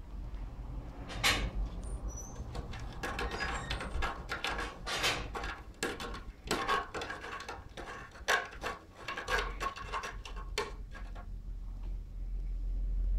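A calico cat's claws scratching and scrabbling at a wooden bed post: an irregular run of short rasping scratches that starts about a second in and stops near the end.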